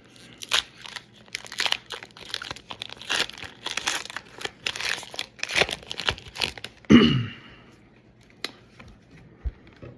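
Foil booster pack wrapper crinkling and tearing as it is handled and ripped open, in quick irregular crackles. There is a louder single burst about seven seconds in, and then it falls mostly quiet apart from a faint click or two.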